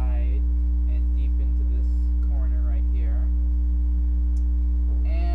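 Loud, steady electrical mains hum, with faint voice sounds under it near the start and about two and a half seconds in.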